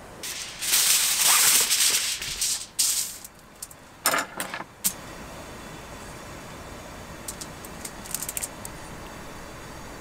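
Loud rustling for about two seconds, then a few short rattles and clicks, then faint scattered clicks: cooking ingredients and their packaging being handled while preparing fried chicken.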